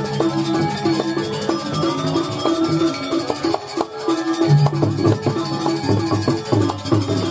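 Balinese gamelan accompanying a Jauk masked dance: metallophone notes ringing in quick figures over drums and fast percussion strokes, with a deep sustained note coming back about halfway through.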